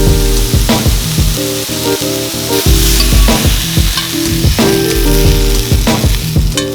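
Food sizzling in a hot frying pan, with background music with a steady beat.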